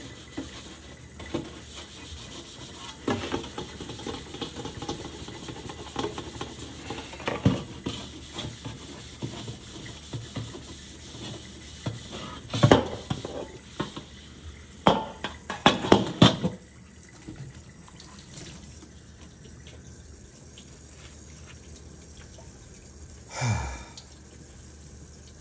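Sponge scrubbing a bare steel wok in a stainless steel sink to take off rust, with the wok knocking against the sink several times. About two-thirds of the way in the scrubbing stops and tap water runs steadily onto the upturned wok, with one thump near the end.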